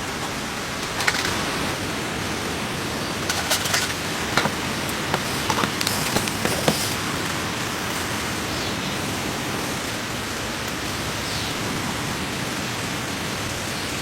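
Steady hiss of falling rain, with scattered sharp taps and ticks from about a second in until about halfway through.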